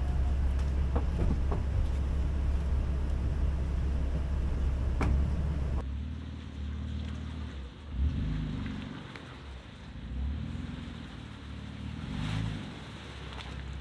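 Vehicle engines running. About six seconds in, the sound cuts to a quieter engine that rises and falls in revs.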